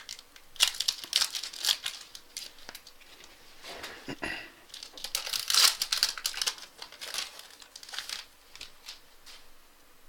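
Plastic wrapper of a trading-card pack being torn open and crinkled by hand: a run of sharp crackles, loudest about five to six seconds in, thinning out after about eight seconds.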